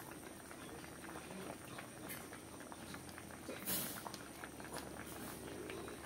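Patin fish curry simmering in an aluminium wok, bubbling and popping faintly as it finishes cooking, with a brief louder hiss a little past halfway.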